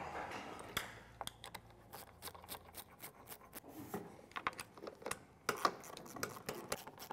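Faint, irregular metallic clicks and taps of hand tools and fittings as the oil tank is being unbolted from a two-post lift's hydraulic power unit.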